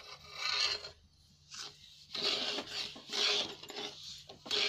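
Steel spoon scraping and stirring semolina with a little ghee around a kadhai as it starts to roast: several rasping strokes separated by short pauses, one long stretch in the middle.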